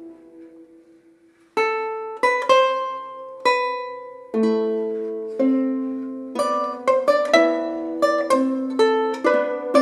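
Renaissance lute and two harps playing a fifteenth-century chanson in plucked counterpoint. A chord dies away into a short pause, then the plucked notes come back in about a second and a half in and grow busier toward the end.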